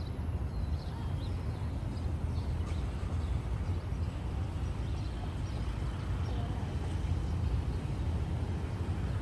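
Outdoor city ambience: a steady low rumble with faint, scattered bird chirps.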